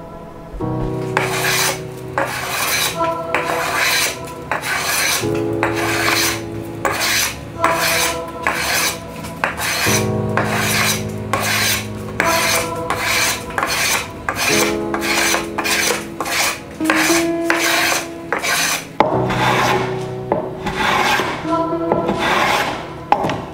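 Hand block plane shaving wooden inlay strips flush with an oak tabletop: quick, repeated rasping strokes, roughly two a second.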